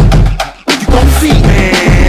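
Hip-hop dance track played loud, with a heavy bass line; the music cuts out for a moment about half a second in, then the beat comes back.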